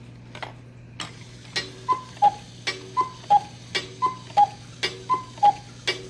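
Cuckoo clock's cuckoo calling: the two-note bellows call, higher then lower, repeating about once a second from about a second in, each call led by a short lower note. The clock's ticking clicks sound under it.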